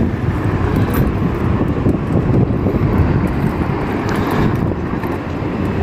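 Wind rushing over the microphone and tyre rumble from a moving battery-powered electric scooter: a steady low noise with no engine note.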